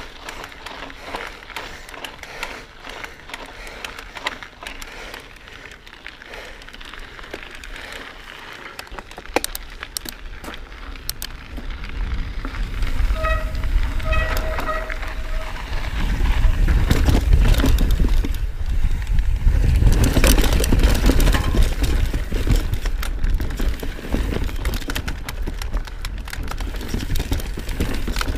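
Mountain bike tyres rolling fast over gravel and dirt trail, with crunching and the bike's rattle, while wind buffets the helmet camera's microphone in a low rumble that grows heavy from about halfway. A short, broken squeal sounds briefly just before the rumble peaks.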